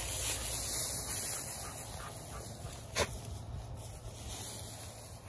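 Wolf dogs rummaging and sniffing through loose hay, with a brief sharp sound about three seconds in.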